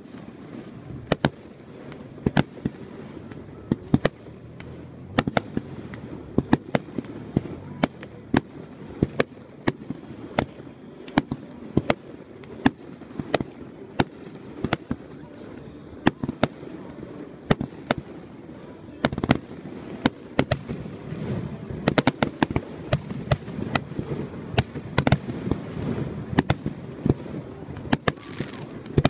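Aerial firework shells bursting in a rapid, irregular run of sharp bangs, often several a second.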